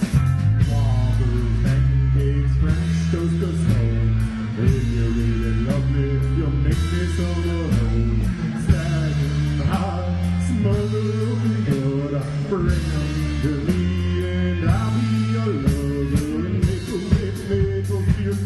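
Live rock band playing: electric guitars over a drum kit, with a melodic lead line bending in pitch above a low part that changes note every second or so.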